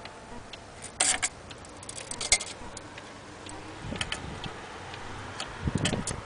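Antique cuckoo clock ticking, with sharp clicks at uneven spacing and a few dull knocks, the loudest clicks about a second in.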